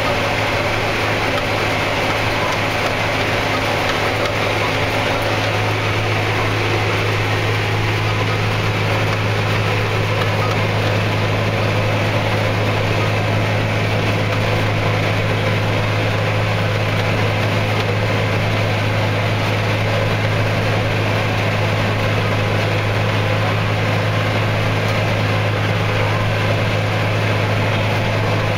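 John Deere 8200 tractor's six-cylinder diesel engine running steadily under load, heard from inside the cab, with the Kuhn Alterna 500 disc mower-conditioner working through a lucerne crop. The result is an even, unbroken low drone.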